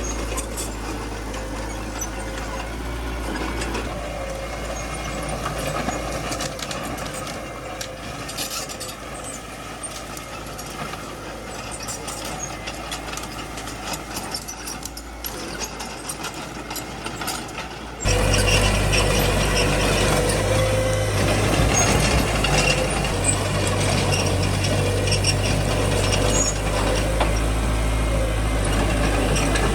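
Small bulldozer's diesel engine running steadily as it works. About eighteen seconds in, the sound jumps abruptly louder.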